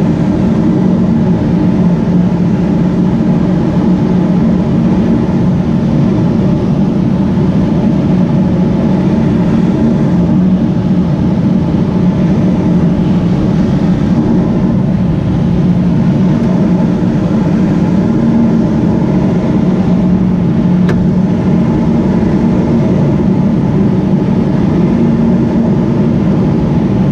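Steady drone of the tow plane's engine and propeller heard from inside the glider cockpit during aerotow, over a constant rush of air.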